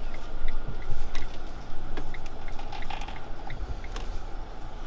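Fiat Ducato camper van's engine idling, heard from the driver's seat, with a light regular ticking about two to three times a second and a few sharp clicks.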